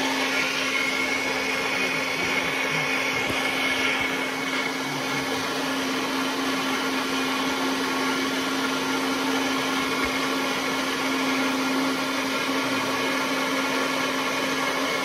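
Countertop blender motor running steadily while blending a thick fruit smoothie, with a higher whine that fades about four seconds in.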